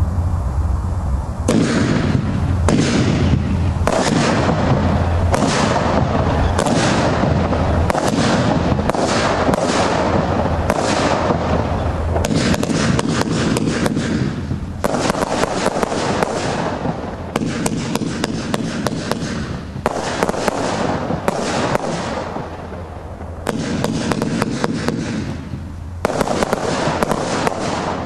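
Absolute Fireworks Blue Paradise firework cake firing: a fast run of shots and bursts with crackle, starting about a second and a half in and thinning out briefly a few times in the second half.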